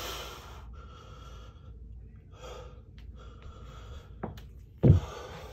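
A man breathing hard after push-ups, with about four heavy breaths in and out, then a sharp knock and a louder, deeper thump near the end.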